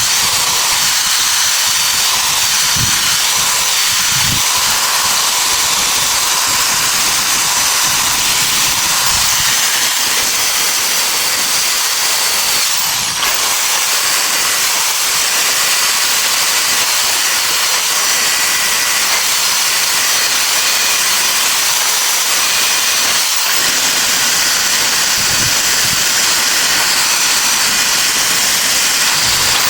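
Steady loud hissing noise with a faint high whine running through it, and a few soft low knocks near the start.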